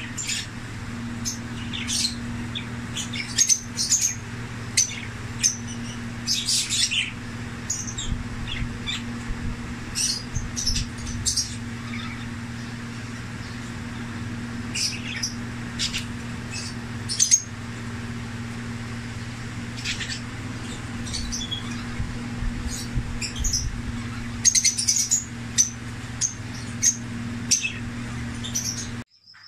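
Caged lovebirds chirping: many short, shrill calls in irregular clusters, busiest about 3 to 7 seconds in and again near the end, over a steady low hum.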